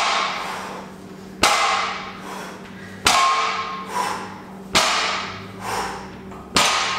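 Loaded barbell plates striking a wooden lifting platform at the bottom of each fast deadlift rep: four sharp clanks with a metallic ringing tail, about one every 1.7 seconds. A faint steady hum sits underneath.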